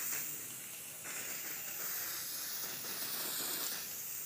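Aerosol spray-paint can spraying with a steady hiss, easing briefly about a second in before carrying on.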